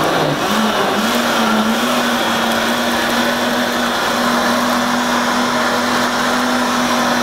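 Countertop blender running, whirling strawberries and coconut water into a purée. Its motor pitch steps up within the first second as the speed is turned up, then holds steady.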